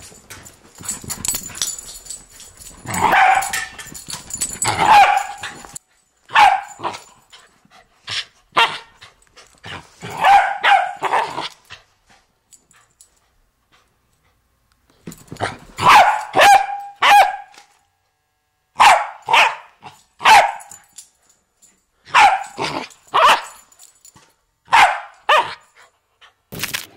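Corgi barking repeatedly in short runs of two or three sharp barks, with pauses of a second or more between the runs.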